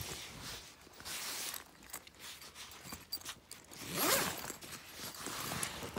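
Tent door zipper being pulled in several short rasping strokes, the loudest about four seconds in.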